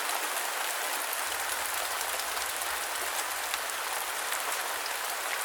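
Steady rain falling, an even hiss scattered with the small ticks of individual drops.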